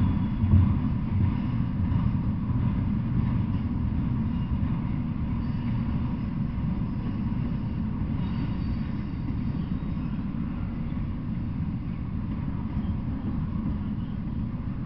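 Double-stack intermodal freight train rolling past: a steady low rumble of well cars on the rails, getting gradually a little quieter.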